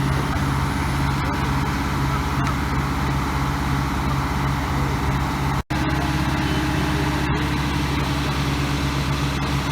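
Heavy earthmoving machine's diesel engine running steadily under power. The sound drops out completely for an instant a little past halfway.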